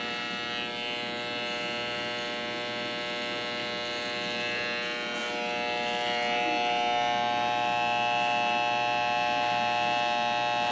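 Electric hair clippers running with a steady buzzing hum as they trim around a boy's ear, growing louder about halfway through.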